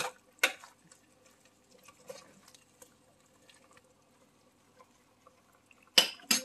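Sharp clinks of cookware, two about half a second apart at the start and two more near the end. In between, a pot of nilaga (beef bone soup) simmers with faint ticking and bubbling.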